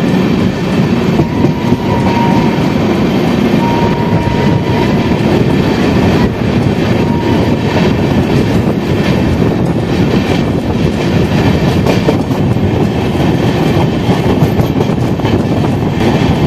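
Garib Rath Express with LHB coaches running at speed through a station without stopping: a steady loud rumble of wheels on rail, with irregular clicks as the wheels cross track joints, heard close beside the coach.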